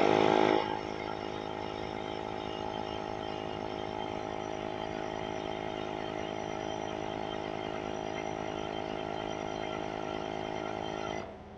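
Small electric air compressor running while inflating a tyre: a louder surge as it starts, then a steady motor hum until it cuts off about eleven seconds in.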